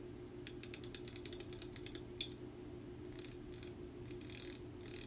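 Faint light metallic clicking and clinking from hands working at a tractor's front-axle steering knuckle. A quick run of clicks lasts about a second and a half, then one sharp click, then scattered clinks and rattles, over a steady low hum.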